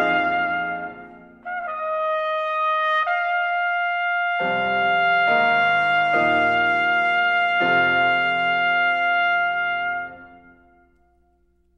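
Trumpet and piano playing. After a brief dip the trumpet plays a note, steps up to a long held note, and the piano strikes four chords beneath it. Both then die away about ten seconds in.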